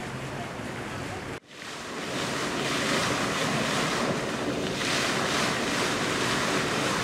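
Fountain jet gushing up through a pond's surface: a steady rushing splash of water. It cuts out briefly about a second and a half in, then builds up and holds.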